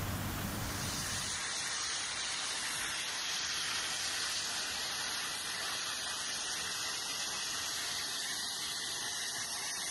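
Muddy floodwater rushing down a street in a torrent: a steady hissing rush of churning water. The lower rumble drops away about a second and a half in, leaving mostly the high hiss.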